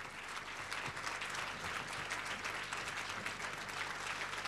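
Audience applauding: many hands clapping, swelling over the first half second and then steady.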